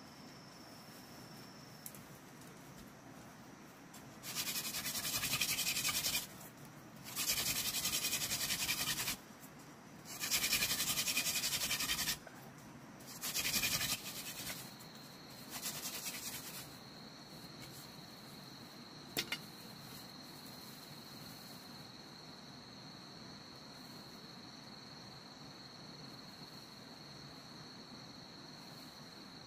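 Bamboo grinding against bamboo to make fire by friction, with a thin bamboo spindle worked hard into a bamboo hearth in five bursts of one to two seconds each. After the bursts a steady high insect drone continues, with one sharp tick a few seconds later.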